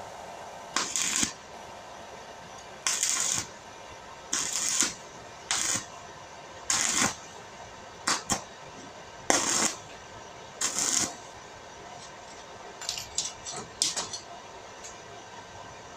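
Stick arc welder striking short arcs on steel fence wire: a string of brief crackling sizzles, about eight in a row, each under a second, then a few shorter crackles near the end, as the wires are tack-welded together.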